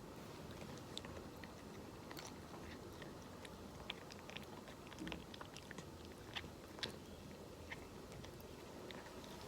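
A cat chewing and crunching dry food, with small irregular crunches throughout.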